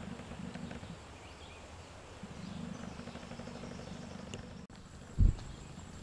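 Quiet rural outdoor ambience: a steady low hum with a faint high insect-like tone above it, and one short dull thump a little past five seconds in.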